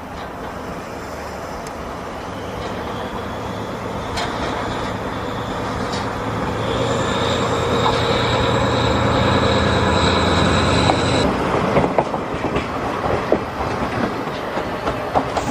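Diesel locomotive hauling a passenger train passes close by. Its engine drone grows louder, with a high steady tone over it, and both cut off about 11 seconds in. The coaches' wheels then clack over the rail joints.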